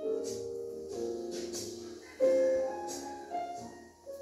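Background piano music: slow chords struck about once a second, the loudest about two seconds in.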